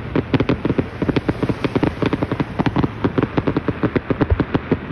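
Aerial fireworks shells bursting in a rapid barrage, with many booms and crackling reports a second that overlap into a continuous rumble.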